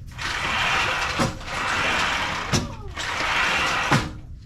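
A sliding screen door rolling along its track, pushed back and forth three times, each run ending in a knock as the frame hits the jamb or stop.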